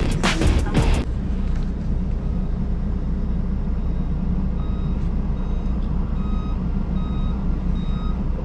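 Heavy truck's diesel engine running with a steady low rumble, heard from the cab, and from about halfway through a reversing alarm beeping over and over, roughly once a second.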